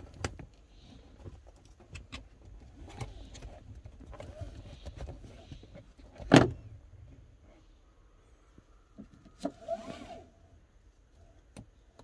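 Rear centre three-point seat belt hardware being handled: metal latch plates and the plastic seat buckle click and rattle in a run of light knocks. There is one sharp, loud click about six seconds in and another cluster of clicks near the end.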